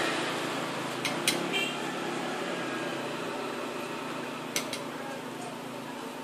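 A stone pestle and a spatula knocking and scraping on a stone mortar, with sharp clicks in two pairs, about a second in and again about four and a half seconds in, over a steady background hum.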